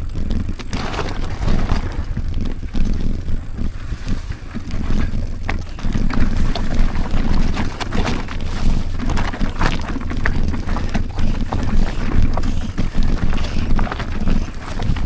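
Mountain bike descending a rocky trail: a steady rumble of tyres over stones, with frequent clicks and knocks as the bike rattles over the bumps, and wind buffeting the microphone.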